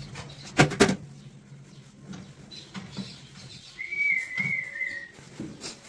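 Two sharp knocks close together, then a short wavering whistle lasting about a second and a half, falling slightly in pitch at the end.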